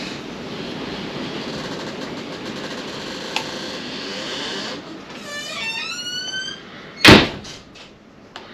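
Steady mechanical whirring for several seconds, typical of the Kawasaki Lakota's electric starter cranking the engine, then a brief run of rising squeaks and a loud sharp clank about seven seconds in, followed by two lighter knocks.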